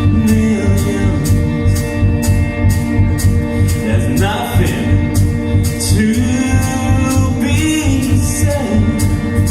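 A band playing a song with a steady drumbeat and sustained instrument notes, with short sung lines coming in partway through.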